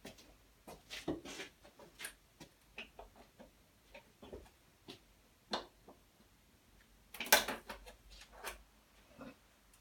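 Hand tools and motorcycle parts being handled: a string of light clicks and knocks, with a louder clatter about seven seconds in.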